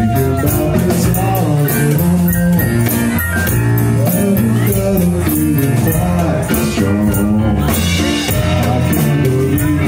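Live band music: a male singer's amplified voice gliding through a melody over a drum kit and keyboard, with steady low notes and regular cymbal and drum hits.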